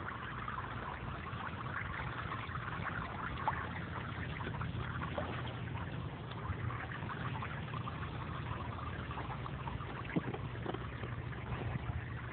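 Water spraying from the jets of a hose-fed splash-pad sprinkler and splashing down onto the pad, a steady hiss with small splashes, over a low rumble.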